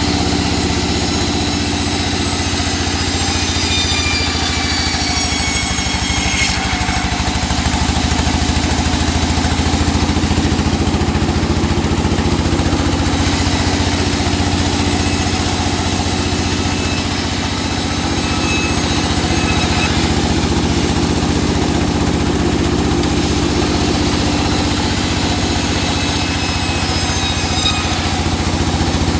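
Engine-driven saw cutting teak wood. The engine runs steadily under a high whine from the cut that slowly falls in pitch and stops sharply about six seconds in, then returns twice later.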